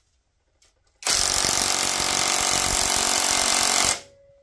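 Cordless impact wrench hammering on a 12 mm cylinder head bolt of a Briggs & Stratton Vanguard V-twin for about three seconds, starting about a second in. The tool is twisted while it runs to break the stuck bolt loose, then cuts off.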